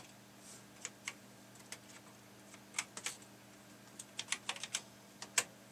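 Keys being typed on an Amstrad CPC 464's built-in keyboard. A few separate keystrokes come first, then short runs of quick taps about three and four seconds in.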